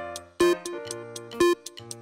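Background music with a steady beat: a sharp hit about once a second, over short pitched notes and a bass line.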